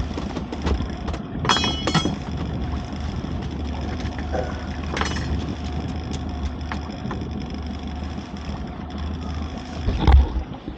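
Small boat's outboard motor idling steadily, with a few knocks and clatters from gear handled on board.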